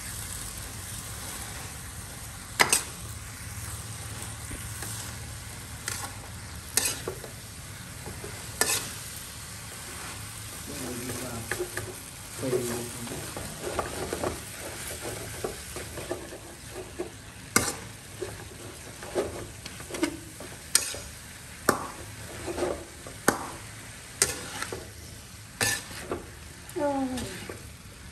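Water spinach sizzling as it is stir-fried in a metal wok, with a spatula scraping the pan and knocking sharply against it every couple of seconds. Squeaky scrapes come in from about the middle onward.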